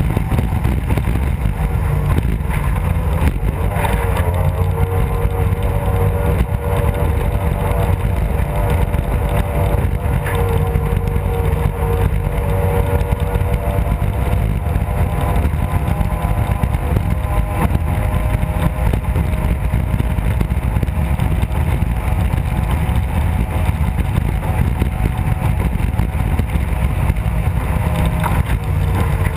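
Mercury racing outboard engine on a hydroplane race boat running hard at speed, a steady high drone whose pitch dips briefly a couple of times. Heavy wind and water rumble underneath it.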